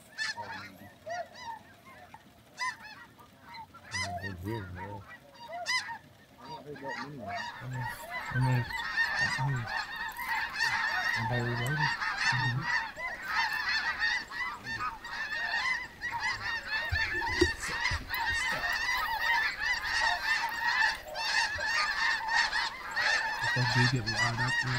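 A large flock of snow geese calling: scattered honks at first, building about eight seconds in to a dense, continuous clamour of many overlapping high-pitched calls.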